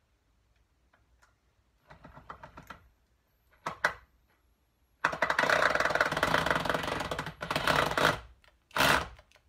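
Cordless drill working at a stubborn screw in a BSA A70L motorcycle engine's primary case: short bursts of rapid clicking, then a loud fast rattle lasting about three seconds, and one more short burst near the end.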